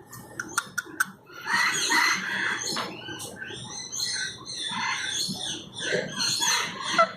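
Parrots squawking: a series of harsh screeches with a few short gliding notes, after a few sharp clicks in the first second.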